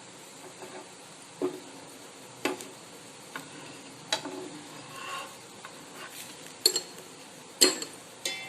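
Bread omelette frying in a pan with a low, steady sizzle, while a spatula taps and scrapes against the pan about once a second. The loudest knocks come near the end.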